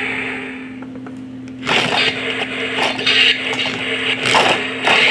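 Toy remote-control El Toro Loco monster truck running with a steady motor hum as it drives onto a plastic ramp. From about two seconds in, its tyres scrape and crackle on the plastic in irregular bursts.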